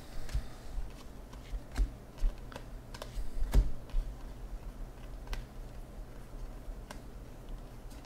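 A stack of cardboard trading cards being flipped through by hand: irregular light clicks and slides of card against card, with a sharper snap about three and a half seconds in.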